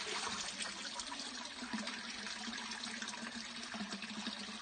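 Water running steadily from a stone village fountain's pipe spout, splashing into the basin and over cupped hands held under the flow.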